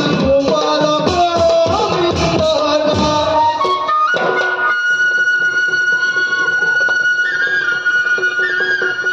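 Live Assamese folk music: dhol drums beat under a melody for the first four seconds or so, then stop. A solo melody instrument carries on alone, holding long high notes that step up in pitch.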